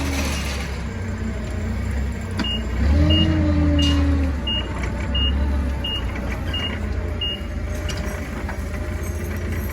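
Forklift engine running, swelling briefly about three seconds in, while its reversing alarm beeps eight times at about one and a half beeps a second as it backs up.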